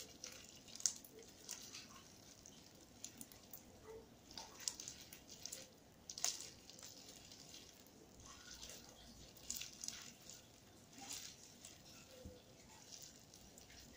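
Faint, irregular wet clicks and squelches of sticky homemade slime being kneaded and pulled between the hands.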